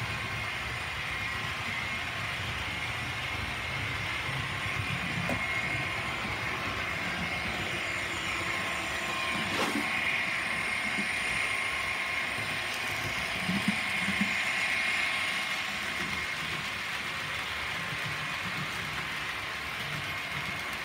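Hornby Class 67 OO gauge model diesel locomotive with a TTS sound decoder running, its small speaker playing a diesel engine sound over the hum of the motor and the noise of wheels on the track. It is a little louder for a few seconds about halfway through as it passes close, with one sharp click.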